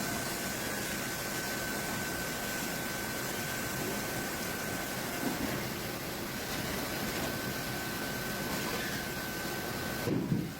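Steady machinery noise with a constant high whine, which cuts off shortly before the end.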